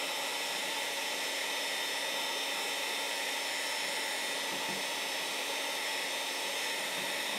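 Heat gun running steadily: a constant rush of blown air with a steady whine from its fan motor, as it shrinks heat-shrink tubing over the joints of tent-pole sections.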